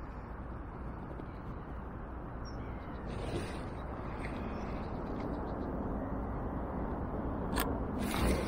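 Steady low outdoor background noise, with a single sharp click and then a brief rustle near the end.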